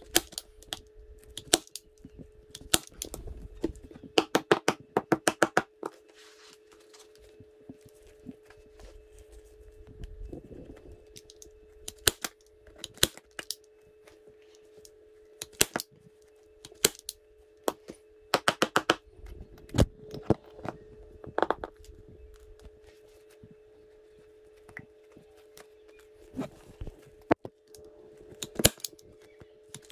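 Manual staple gun snapping staples into a motorcycle seat, sharp clicks that come singly and in quick runs of five or six, over a steady hum.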